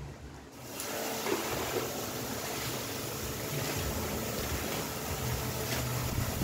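Packing paper and plastic wrap rustling and crinkling as they are pulled out of a cardboard shipping box. The rustle starts just under a second in and goes on as a steady hiss with a few sharper crackles.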